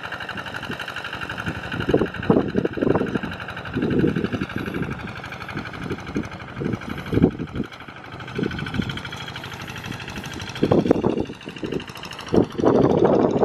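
Single-cylinder Kubota RD85 diesel engine of a Quick G1000 Boxer hand tractor running steadily, with irregular louder bursts of low noise over it, the strongest near the end.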